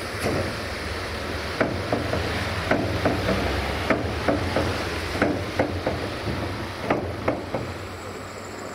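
DAF CF85 dump truck's diesel engine running steadily with its tipper body raised, under a dozen or so irregular sharp knocks and clatters at the tailgate as sand is cleared from the steel body.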